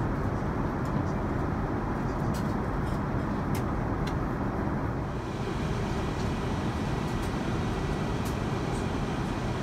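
Steady cabin noise of an Airbus A350-900 in flight: a constant low rush of airflow and engine noise, with a few faint clicks.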